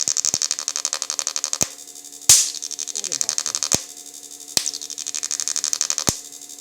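Electric fish-shocking machine (IGBT inverter) running at its lowest voltage setting: a fast, high-pitched pulsing buzz that switches on and off in bursts, with sharp clicks as it cuts in and out over a steady hum.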